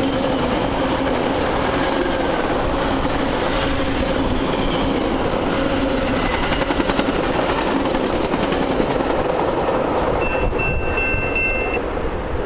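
Metra commuter train passing through the station at speed without stopping: a loud, steady rush and rumble of wheels on rail. A brief high ringing tone comes in about ten seconds in, and the sound starts to fade near the end.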